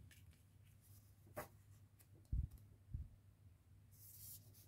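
Near-silent room tone with a few faint handling sounds: a short click, two soft low knocks a half-second apart about halfway through, and a brief hiss near the end.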